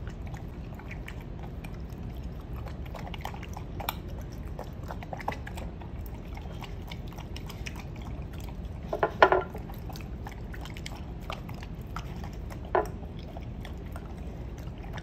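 Golden retriever puppy eating from a bowl of broth and soft food: wet lapping and chewing with many small clicks, and a couple of louder knocks about nine seconds in and again near thirteen seconds.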